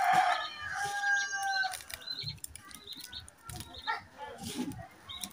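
A rooster crowing once, ending in a long held note that lasts until almost two seconds in, followed by scattered short clicks.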